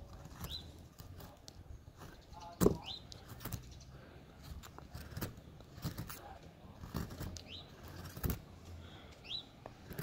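A hand chisel cutting into a basswood carving blank, giving a few sharp cracks as chips split off along the grain, the loudest about two and a half seconds in. A bird gives a short rising chirp about every two seconds.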